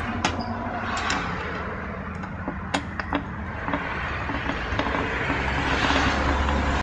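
Scattered sharp metal clicks as a T8 Torx screwdriver works the screws out of a hard drive's metal case. Traffic noise underneath swells near the end as a car passes.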